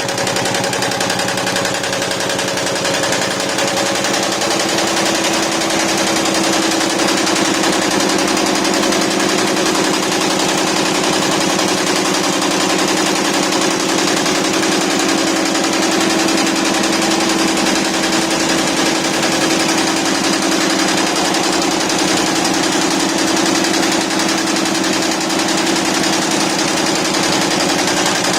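YBD164 64-needle quilting embroidery machine running, its needle bars stitching in a rapid, steady mechanical clatter.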